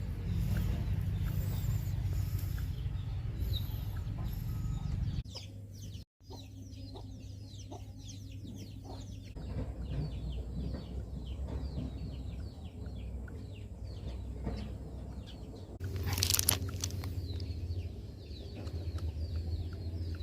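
Birds calling: many short, high, falling chirps, with clucking, over a low steady hum. The sound cuts out briefly about six seconds in.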